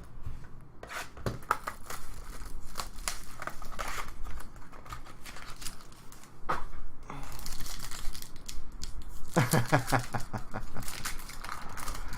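Trading card pack wrapper being torn open and crinkled, with cards handled, in a run of irregular crackling tears.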